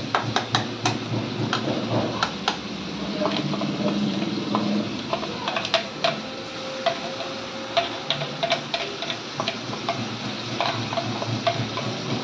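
A spoon scraping and tapping chopped onion out of a plastic chopper bowl into a kadhai, making irregular clicks, over a steady sizzle of the onion frying in hot oil.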